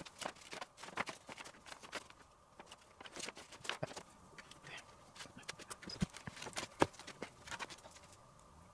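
Irregular light clicks, taps and crinkles of small electronic kit parts being handled in plastic bags and a plastic parts tub on a workbench.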